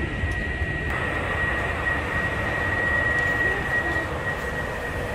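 Matterhorn Gotthard Bahn electric train moving slowly through the station: a steady high whine over a low rumble.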